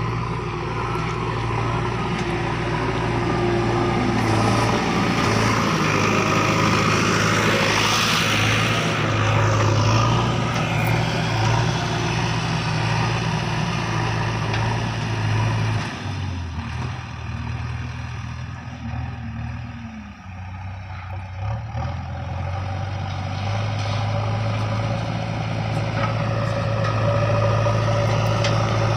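JCB 3DX backhoe loader's diesel engine running as the machine works, with a louder swell about a quarter of the way in. About halfway through the engine note drops lower for several seconds, then picks back up.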